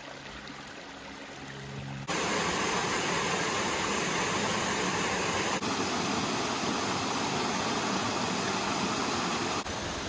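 Rushing water of a small forest stream cascading over mossy rock, a steady even rush. It is fairly quiet for the first two seconds, then much louder from about two seconds in.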